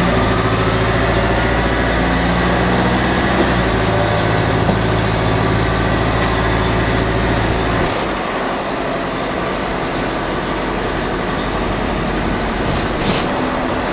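Bus engine drone and road noise heard from inside the passenger cabin. The steady low engine note drops away about eight seconds in, leaving mostly road noise.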